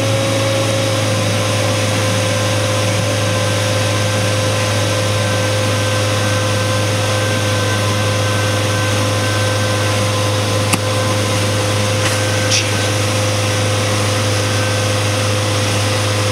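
Suzuki outboard motor running steadily at speed, its drone mixed with the rush of water from the wake.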